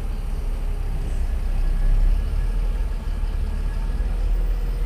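Steady low background rumble, engine-like in character.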